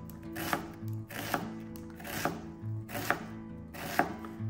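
Chef's knife dicing an onion on a cutting board, the blade striking the board about once a second, with background music.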